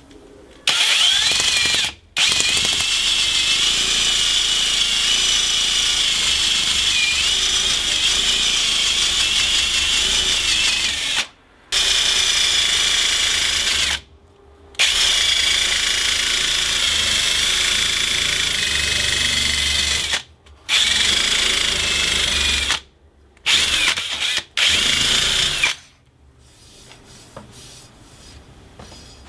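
An electric power tool running, with a high whine that wavers as it is loaded. It comes in seven stretches that start and stop abruptly.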